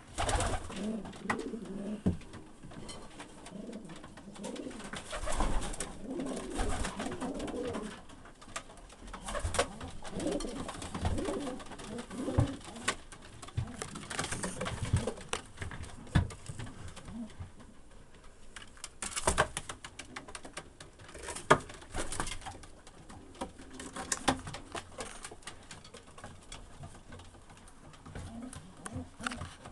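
Domestic racing pigeons cooing in a small loft, low wavering coos mostly in the first half. Scattered sharp knocks, the loudest a little past the middle.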